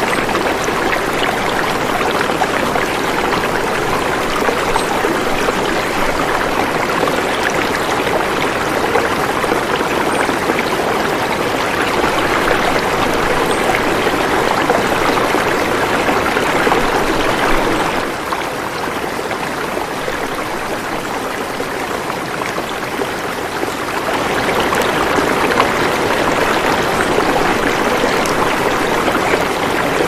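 A shallow stream running over rocks: a steady rush of flowing water that eases a little for several seconds past the middle, then comes back up.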